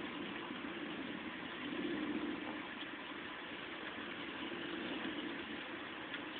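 Heavy rain from a severe thunderstorm pouring steadily, with a low drone underneath that swells and fades twice.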